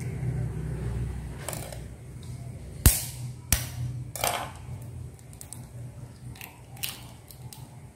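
A chicken egg is tapped twice against the rim of a bowl, two sharp knocks about half a second apart. Softer clicks and crackles follow as the shell is pulled apart, over a low steady hum.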